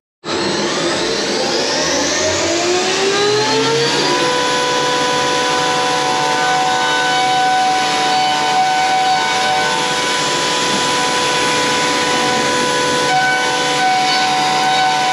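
CNC milling machine's spindle whine rising in pitch over the first few seconds, then a face mill cutting a metal block at a steady high whine with a hiss of chips.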